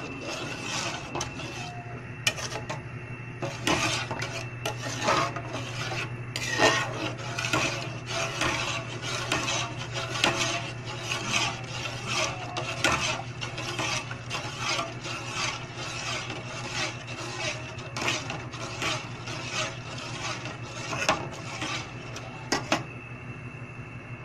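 Metal ladle stirring a green liquid in a pot, scraping against the pot's sides and bottom in quick repeated strokes, about two a second. The stirring starts about two seconds in and stops shortly before the end.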